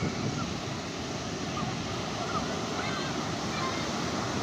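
Sea waves washing onto a beach, a steady rushing surf noise.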